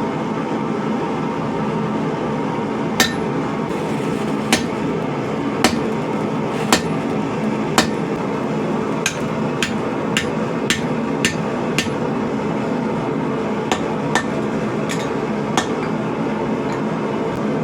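A blacksmith's hammer striking steel on an anvil: about fourteen separate blows, unevenly spaced, starting about three seconds in. Underneath is a steady noisy roar.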